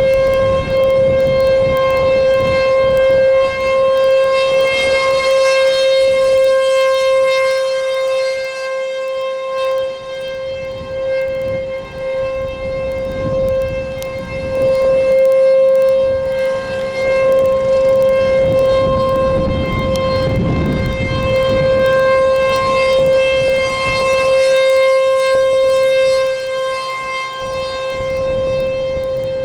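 American Signal T-128 outdoor warning siren sounding a steady alert tone at close range; the pitch holds level while the loudness swells and fades as the rotating siren head sweeps toward and away.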